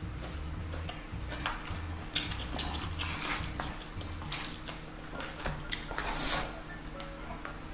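Close-miked eating sounds: bites and chewing of crispy fried chicken in short crunchy bursts, with light clinks against a plate.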